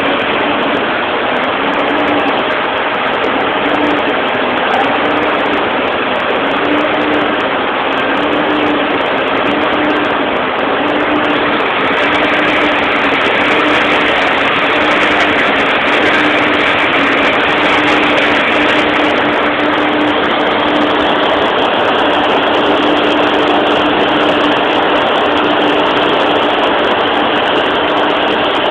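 Fire truck engines running steadily at the scene, loud and constant, with a low tone pulsing about once a second that runs together into a longer tone near the end.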